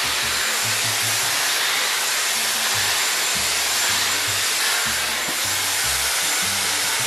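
Dyson Airwrap hair styler blowing steadily through its flat brush attachment, a constant even rush of air, with background music and its bass line underneath.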